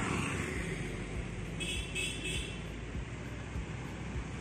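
Steady street traffic noise, with a two-wheeler passing at the start. Three quick high toots of a vehicle horn sound about halfway through.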